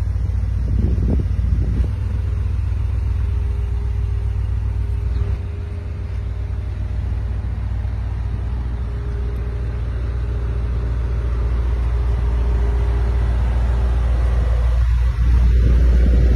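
Brabus G-wagen pickup's tuned 800-horsepower twin-turbo V8 running through its side-exit exhaust with a low rumble. It has a few short surges about a second in and grows steadily louder over the second half, with a step up near the end.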